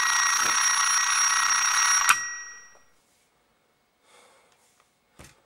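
Alarm clock ringing continuously, cut off abruptly with a click about two seconds in; the ring dies away over the next second. Then only faint rustles and a short knock near the end.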